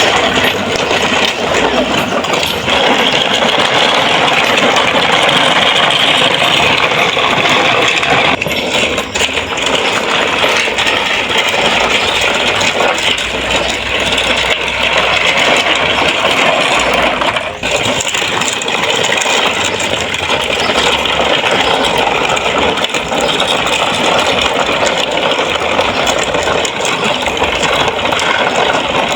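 A toy truck loaded with small toy cars, rattling continuously as it is moved along.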